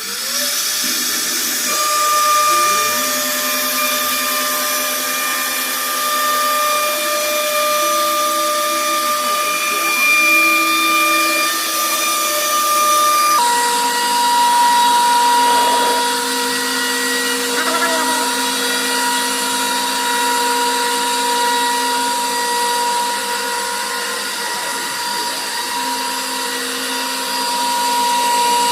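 CNC router spindle running steadily as it carves a wooden board, with a high steady whine. The whine drops abruptly to a lower pitch about halfway through.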